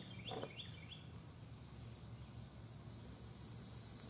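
Faint outdoor background with a bird chirping four quick, rising notes in the first second.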